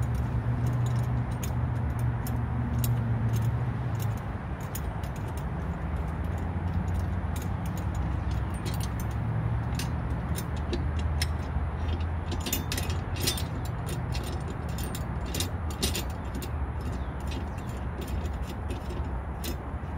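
Metal clicks and clinks from a hand wrench working the blade bolts on the underside of a tipped-up walk-behind mower, coming in quick clusters, busiest in the middle of the stretch. A steady low hum runs underneath.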